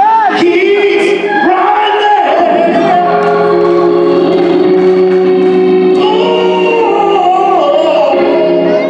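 Live gospel music: a man singing into a microphone in long held, wavering notes and slides, over sustained chords from a Hammond organ, heard through the hall's PA.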